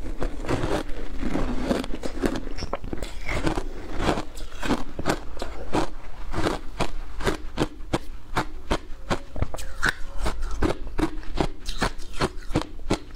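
Shaved ice mixed with passion fruit pulp being chewed close to the microphone: a steady run of sharp, crisp crunches, about three a second.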